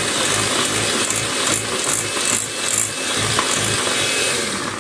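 Electric hand mixer running steadily, its beaters whipping butter, icing sugar and vanilla essence into buttercream in a glass bowl.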